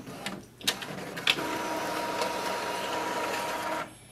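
Epson XP-4200 inkjet printer printing the print-head alignment pattern. A few sharp clicks from the mechanism are followed by a steady whir with a faint high whine from the paper feed and print head, which stops shortly before the end.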